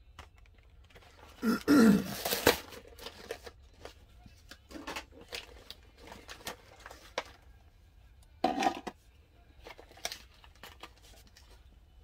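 Packaging of a diecast model car being handled on a table: rustling and crinkling of card and plastic, with a few knocks as a metal storage tin is set down. The loudest burst of handling comes about two seconds in, with shorter bursts after.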